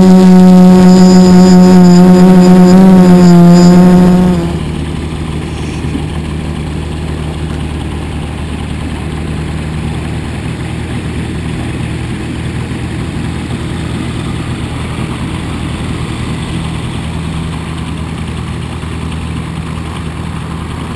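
A loud steady droning note with many overtones, which stops abruptly about four seconds in. After it, a light-aircraft piston engine idles steadily with its propeller turning: a microlight waiting on the apron.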